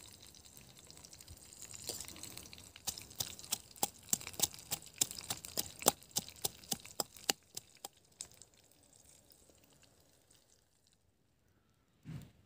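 A utensil striking quickly and repeatedly inside a steel tumbler while crushing green chilies and herbs: sharp metallic clicks, about four a second, from about three seconds in until about seven seconds in. A short thump comes near the end.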